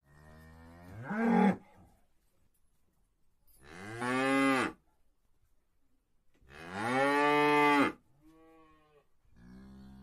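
Cows mooing: three long, loud moos about three seconds apart, then two softer, shorter moos near the end.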